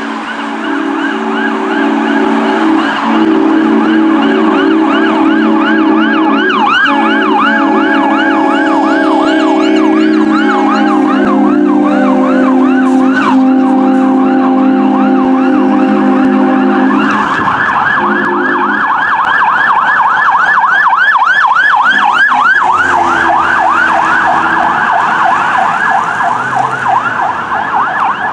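Fire apparatus responding: an electronic siren in a rapid yelp, with long steady blasts of air horn under it for most of the first two-thirds. About two-thirds in the horn stops and a faster, denser yelp carries on as the second truck comes through.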